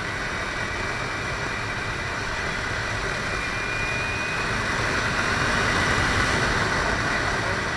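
Kawasaki Ninja 300's parallel-twin engine running at road speed under steady wind rush on the microphone, swelling slightly about five seconds in.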